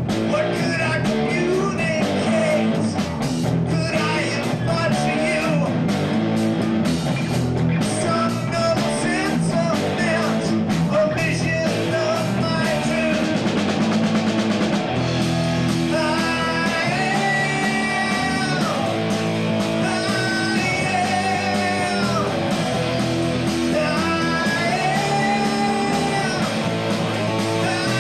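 Live three-piece rock band playing guitar, bass guitar and drum kit, with sung vocals; the singing carries long held notes from about halfway through.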